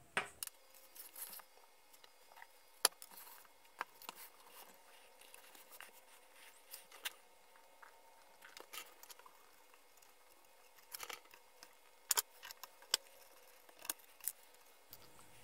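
Quiet, scattered clicks and light taps of hands and small tools working on a metal electronics chassis while the old potentiometer is taken out, with a few sharper clicks about three seconds in and again past the middle.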